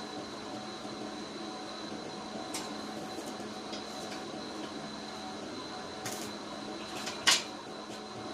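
Light metallic clinks over a steady low hum, with one sharp metal knock about seven seconds in.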